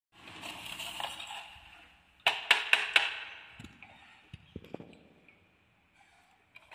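Hard toys being handled: a rustle first, then four sharp clacks in quick succession a little over two seconds in, followed by a few softer knocks.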